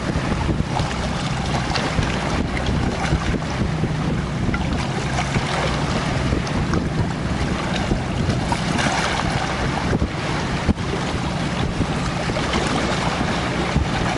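Strong wind buffeting the microphone in a steady rumbling roar, with choppy lake water washing against the rocky shore.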